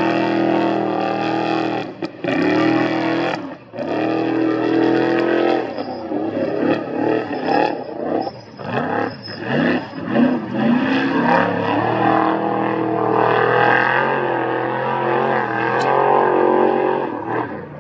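Off-road race vehicle's engine running hard, with two brief throttle lifts about two and three and a half seconds in. Then a stretch of quick revs rising and falling, before it settles to a steady high pitch and fades near the end.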